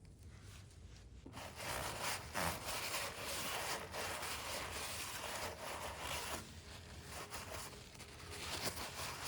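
Irregular rustling and scraping, starting about a second in, from hands handling parts during a motorcycle oil filter change.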